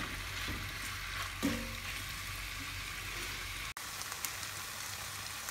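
Chicken pieces, onion and garlic frying in butter: a steady sizzle, stirred with a silicone spatula at first, with a short knock about a second and a half in. The sound drops out for an instant a little past halfway, then the sizzle goes on with a few small pops.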